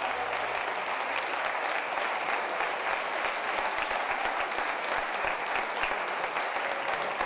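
Audience applauding: dense, steady clapping, with the last of the music dying away in the first second.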